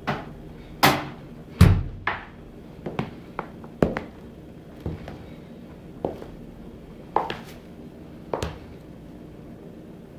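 Black leather boots stamping and stepping on a hard tiled floor: a series of irregular sharp knocks and thuds, the heaviest and deepest one about a second and a half in.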